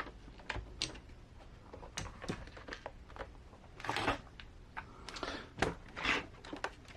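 Scattered light clicks and taps of small plastic and metal parts being handled, with a few short scraping rubs about four to six seconds in, as an RC crawler's wheel is fitted and bolted on.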